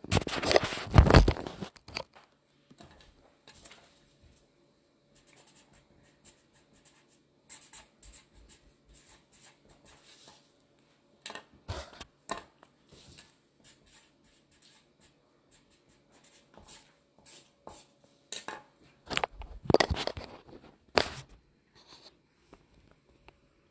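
Hands pressing, patting and sliding raw chicken cutlets on a plastic cutting board: uneven rustling and scraping, loudest in the first two seconds and again about 19 to 21 seconds in, with scattered small clicks between and a faint steady hum in the quieter middle.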